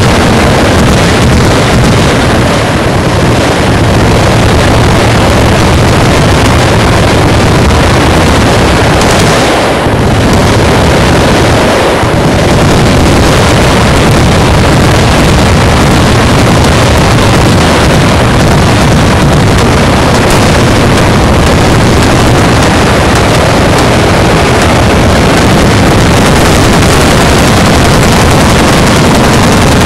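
Many machine guns firing at once from a firing line, their shots merging into one continuous, overloading roar of gunfire.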